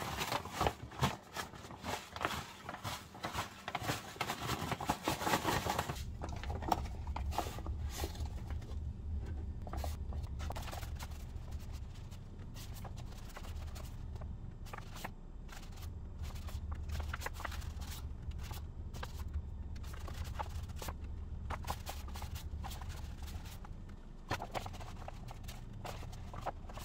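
Seasoned zucchini slices rustling and rattling in a plastic container as it is shaken and tipped, for about the first six seconds. Then come scattered light clicks and taps as the slices are laid on a metal mesh dehydrator tray, over a steady low hum.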